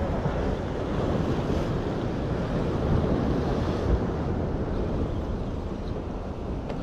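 Sea surf breaking on a rock breakwater, with wind buffeting the microphone.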